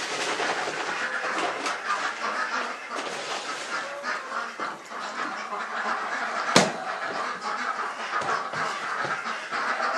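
A flock of farm ducks and other poultry calling continuously, many quacks overlapping. One sharp knock about two-thirds of the way through.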